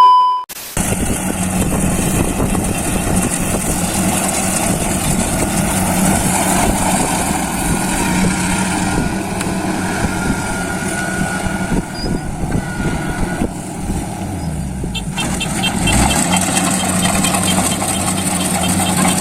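Combine harvester running steadily with a constant engine hum. A brief, loud steady beep-like tone opens it, and a faint rapid ticking joins near the end.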